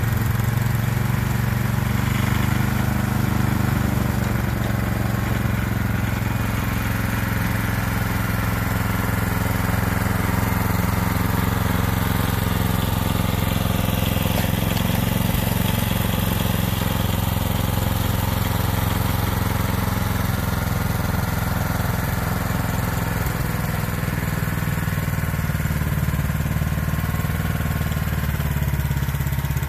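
Small engine of a tracked snowblower running steadily under load as it is walked through deep snow.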